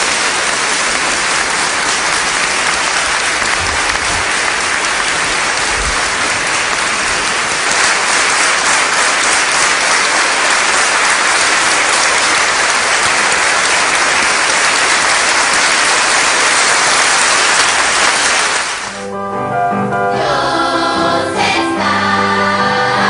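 A large audience applauding steadily for about nineteen seconds; as the applause dies away, a choir starts singing.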